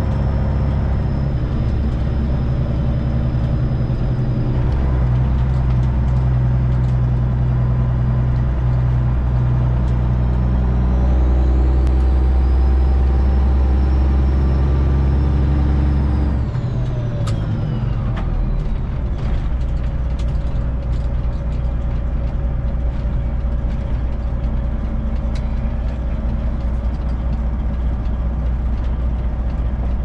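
Detroit Diesel 12.7 Series 60 inline-six in a Freightliner Classic XL semi truck pulling steadily, heard with a high whine that rises and holds. About sixteen seconds in the engine drops off throttle, its low drone falling away sharply while the whine winds down, and then it runs on more quietly.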